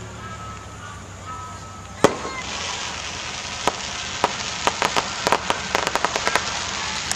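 An aerial firework shell bursts with a sharp bang about two seconds in. A hissing shower follows, broken by a run of quick, sharp crackling pops.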